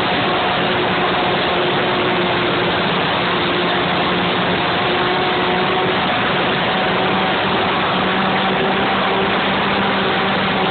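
Piper J3 Cub model airplane's motor and propeller heard from on board in flight: a steady drone with a constant pitch over a loud even rush of air and hiss.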